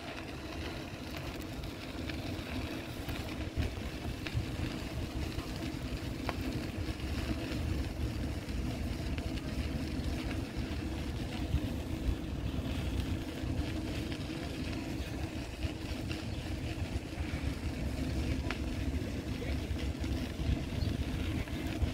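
Steady low engine rumble of a motor vehicle, with no clear starts or stops.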